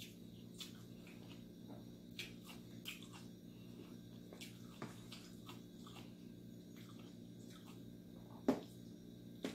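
Soft eating sounds from someone eating rice and sautéed sardines by hand: scattered small clicks and mouth smacks over a steady low hum, with one louder short sound about eight and a half seconds in.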